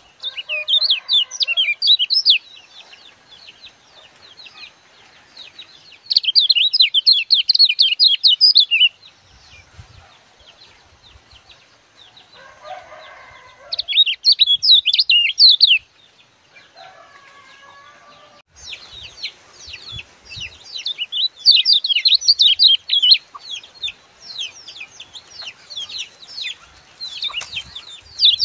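Caged kecial kuning songbird singing in bursts of rapid, dense, high chirping several seconds long, with short pauses between them, becoming nearly continuous in the second half. Twice near the middle a lower, separate call sounds from another animal.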